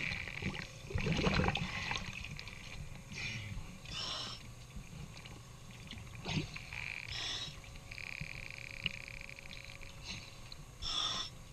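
Irregular swishes and bubbling of water around a diver scrubbing a boat's hull at the waterline with a scouring pad.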